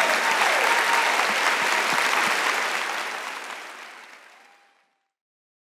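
Audience applauding, fading out from about halfway through and gone just before the end.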